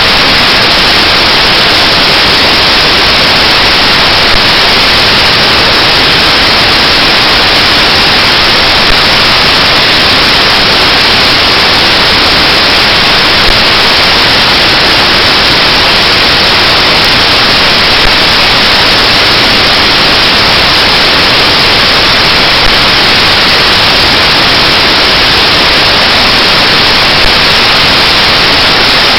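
Loud, steady hiss of static noise with no other sound in it, and a slight blip in level about every four and a half seconds.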